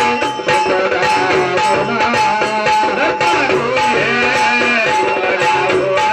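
Kirtan accompaniment: a harmonium holding and moving through notes over a steady beat of mridang (two-headed barrel drum) strokes.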